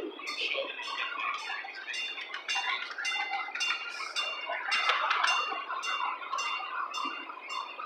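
Miniature railway train running along its track: metallic clicks at an even pace of about three a second, each with a brief high ring.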